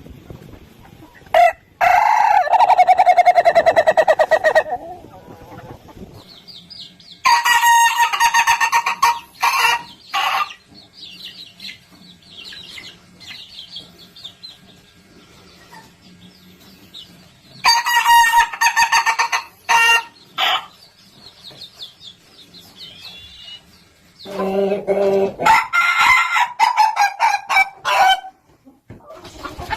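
Ayam ketawa (laughing chicken) roosters crowing: four long crows, each a rapid staccato run of notes that sounds like laughter, with quieter gaps between them.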